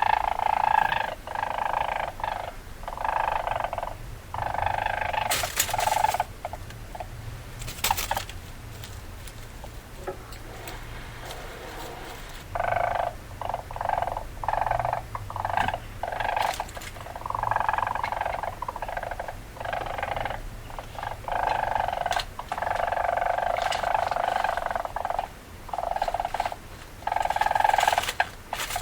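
Weasel chattering: runs of rapid, harsh calls, broken by a pause of several seconds about a third of the way in, with a few sharp clicks among them.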